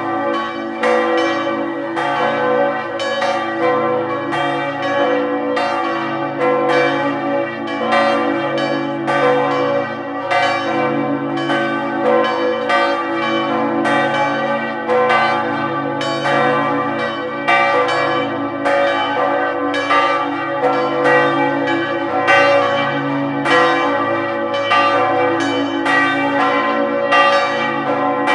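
Several church bells ringing together in a full peal from the bell tower. The strikes come about two a second and overlap, over a steady hum of the bells' lasting tones.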